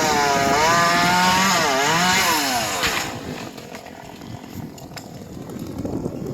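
Stihl chainsaw running at high revs while cutting palm trunk, its pitch dipping and rising under load, then dropping away about three seconds in as the throttle comes off.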